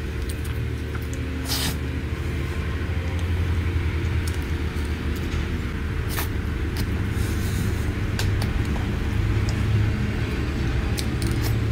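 Steady low background rumble with a faint hum, of unclear source, over a few short clicks and soft scrapes as a spoon scoops cream cake and it is eaten.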